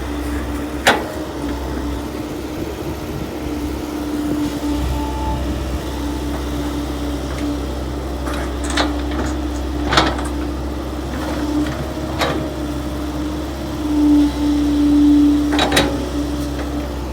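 Kobelco excavator's diesel engine running steadily under working load, with its note swelling louder for a moment near the end. Several sharp clanks of metal are heard along the way.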